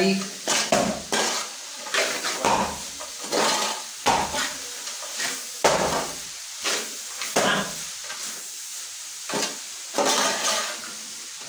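A metal spoon stirring and scraping in a pan of frying onions and shallots, with irregular clattering strokes over a steady sizzle.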